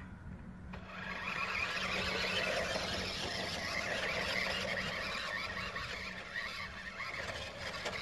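Toy remote-control jeep's small electric motor and gears whirring steadily as it drives, starting about a second in.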